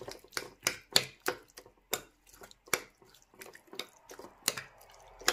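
A utensil tapping and scraping against a bowl as minced pork is mixed and broken up in a wet chili sauce, with about three sharp clicks a second and some squishing.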